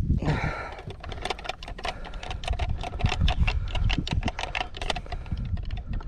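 Rapid, irregular clicking and rattling of fishing gear being rummaged through and handled on a boat deck.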